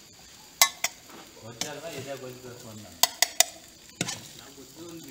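Stainless-steel cooking vessels and utensils clinking sharply, twice about half a second in and three times in quick succession near three seconds, over a steady hiss while rice is stirred and mixed in a steel pan.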